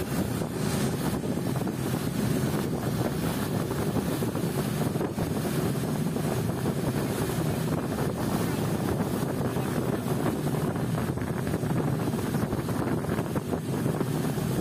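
Longtail boat's engine running steadily under way, with wind buffeting the microphone.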